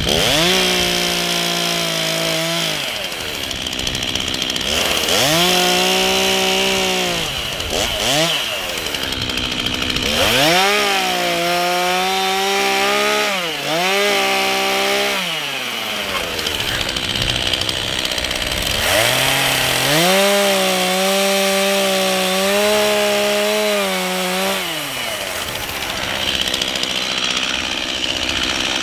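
Stihl two-stroke chainsaw cutting out a corner notch in a log, revved to full throttle in about five stretches of a few seconds each and dropping back between them.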